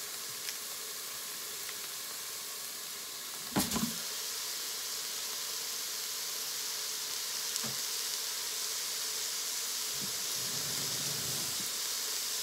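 Chopped onions sizzling with a steady hiss in the stainless inner pot of a Pampered Chef Quick Cooker electric multicooker on sauté. A thump about three and a half seconds in as raw ground beef drops into the pot, after which the sizzle is a little louder.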